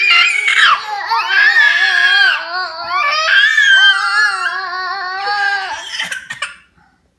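A toddler crying loudly in long, wavering wails, which stop near the end.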